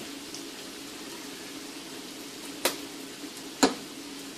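Butter, garlic and dried parsley sizzling steadily in a pan, with a faint steady hum underneath. Two sharp knocks about a second apart cut in past the middle.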